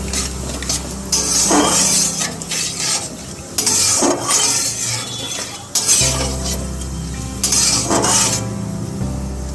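Whole spices and garam masala sizzling in hot mustard oil in a kadai, with a spatula scraping and stirring them in several separate strokes.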